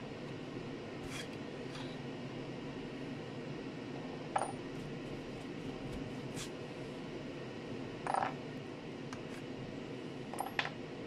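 End-cutting pincers pulling rusty nails out of a hatchet's wooden handle: a handful of sharp metal clicks and clinks, a couple of seconds apart, over steady background noise.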